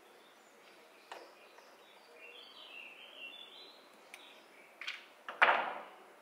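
Small metal clicks and a light scraping as circlips are worked off the brake shoe assembly of a Lambretta TS1 engine with circlip pliers. A louder metal clatter comes about five and a half seconds in.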